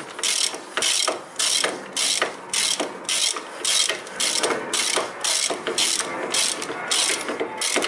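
Ratchet wrench on a socket extension clicking in quick bursts, about two a second, as the handle is swung back and forth to run in a brake caliper bracket bolt.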